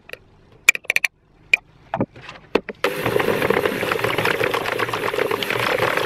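A few sharp knocks and clicks, then about three seconds in a Bosch electric hand mixer starts suddenly and runs steadily, its twin beaters whisking a cream cheese cake batter in a plastic bowl.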